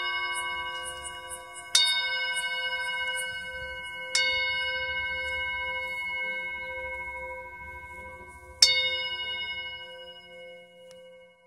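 A struck metal bell-type instrument, used for sound healing, is hit three times. Each strike rings on in several clear, steady tones that slowly fade, and there is a faint high tinkling in the first few seconds.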